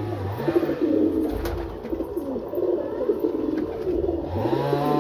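Domestic pigeons cooing, several low throaty coos overlapping. A steady musical tone rises in near the end.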